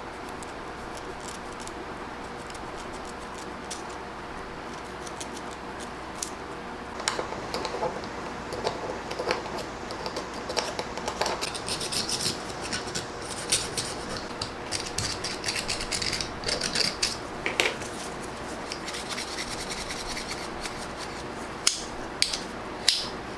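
Stiff, rusty blade of an old folding pocket knife being worked back and forth at its pivot, soaked with penetrating oil to free it: metal rubbing and scraping with small clicks, starting after several quiet seconds of steady hum, with a few sharper clicks near the end.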